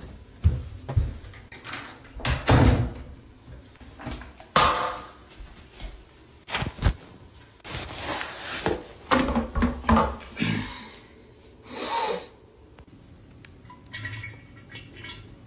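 Irregular knocks, thumps and rustles in a small room, a few seconds apart, with a longer rustle about twelve seconds in.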